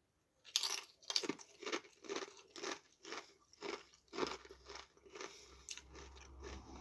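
Doritos tortilla chip being crunched and chewed, about two crisp crunches a second, becoming softer chewing after about four seconds.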